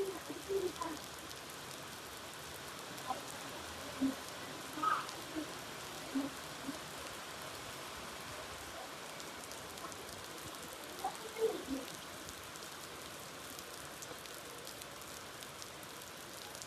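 Steady rain falling, an even hiss, with a few short faint sounds standing out now and then.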